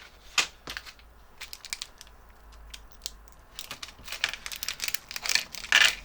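Small computer-case parts and screws being handled: scattered light clicks and taps, then denser rustling, crinkling and clicking over the last two seconds or so.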